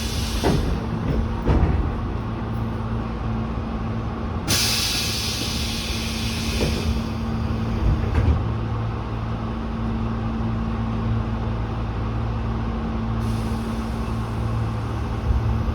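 Tobu 8000-series electric train's air brake system hissing: two loud bursts of escaping air, one dying away about a second in and another from about four to seven seconds in, over a steady hum from the car's equipment, as the brakes are released for departure. A fainter hiss starts near the end.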